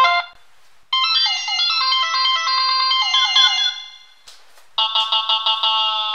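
Nokia 3220 phone speaker playing MIDI versions of Android Jelly Bean ringtones. One tune plays about a second in and fades out. After a short click, another tune with quickly repeated notes starts near the end.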